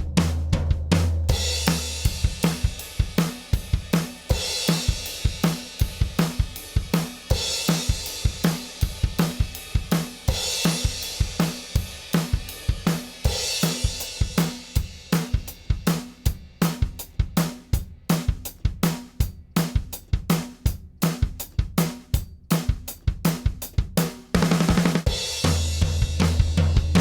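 Drum kit playing a steady beat of kick, snare and hi-hat, with cymbal crashes every few seconds. A low bass note sounds at the start and again near the end.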